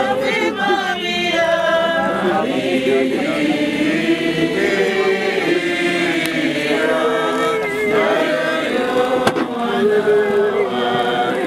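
Mourners singing a hymn together, several voices sustaining wavering notes.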